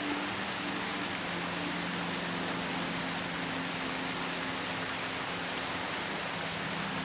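Steady rain falling as an even hiss, blended with a soft ambient pad holding low sustained notes that shift pitch a couple of times.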